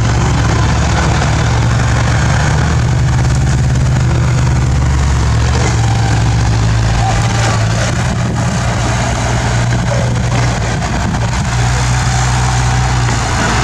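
Bulldozer's diesel engine running steadily, a low drone whose pitch shifts slightly a couple of times.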